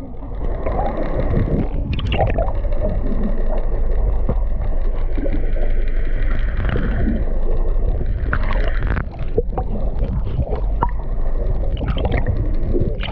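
Small boat on open water: a steady low rumble of wind and water against the hull, with scattered knocks and a wavering whine through the middle.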